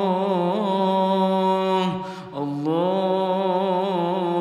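A single voice chanting an Arabic dua in long, drawn-out melodic notes, intoning "Allah" and then "Allah" again, with a short breath about two seconds in. The notes waver slightly in pitch.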